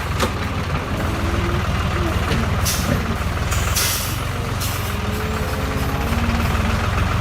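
Heavy vehicle engine running steadily with a low pulsing drone, and two short bursts of air hiss about three and four seconds in.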